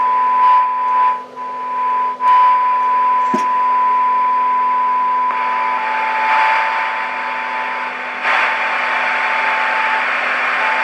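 Loudspeaker of a Marconi 2004 seven-transistor radio playing a signal generator's steady test tone, held in hiss and static. Partway through, the hiss swells twice while the tone stays weak. The set is barely picking up the 600 kHz test signal: it seems deaf.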